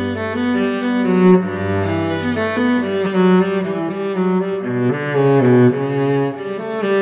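Background music of bowed strings, a cello-like low line under higher voices, playing a melody whose notes change about every half second to a second.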